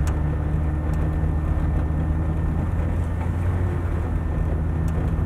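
Steady low engine and road noise heard inside the cabin of a moving car, with a few faint clicks.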